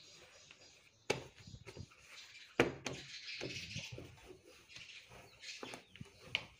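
Jeans being folded and pressed with a heavy electric dry iron: cloth rustling, with three sharp knocks as the iron and denim are handled, the loudest about two and a half seconds in.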